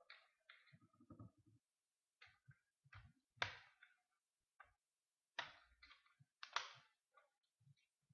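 Plastic screen bezel of an Acer Aspire 3810T laptop being pried off with a flathead screwdriver: scattered light clicks and scrapes of metal on plastic, with three sharper snaps in the middle and second half as the bezel's clips pop loose.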